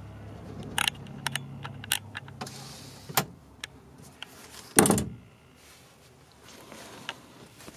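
A wooden cabinet door being handled: scattered clicks and light knocks, then one loud knock about five seconds in as the door shuts. A faint low hum runs under the first three seconds.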